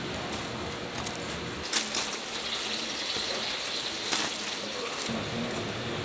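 Steel serving tongs clicking twice, sharply, while picking up sugar-coated fried donuts, over a steady hiss.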